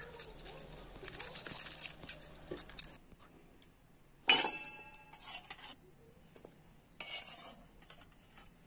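A steel spoon stirring and clinking in a steel bowl of liquid, then about four seconds in a loud ringing clang as boiled potatoes and a ladle drop into an empty stainless-steel bowl, followed by a few lighter clinks and a softer clatter near the end.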